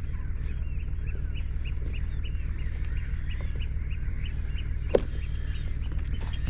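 Birds calling over and over in short high notes, roughly two a second, over the steady low rumble of a sailing yacht's inboard engine running. A single sharp knock about five seconds in.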